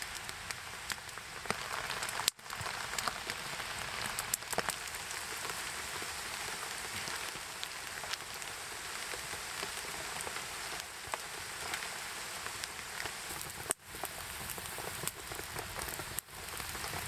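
Heavy rain pouring down, a steady hiss dotted with many sharp individual drop hits. The sound drops out for an instant three times.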